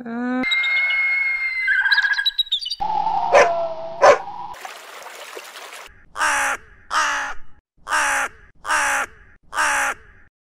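Short animal clips one after another: a drawn-out pitched call, then a muddle with two sharp knocks, then five harsh caws about a second apart.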